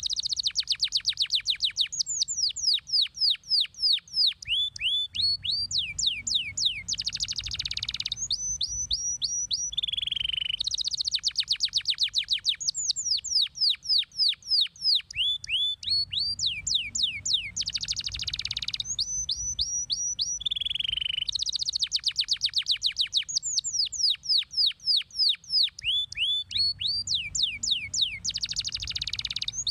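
Domestic canary singing a long song of rapid trills: fast runs of high down-slurred notes at changing speeds, with a lower falling note between runs. The same sequence of phrases comes round about every eleven seconds.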